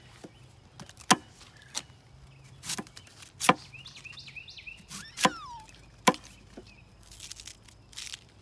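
Knife blade striking and splitting a fresh bamboo shoot as it is cut and peeled, about six sharp chops at uneven gaps, the loudest about a second, three and a half and six seconds in.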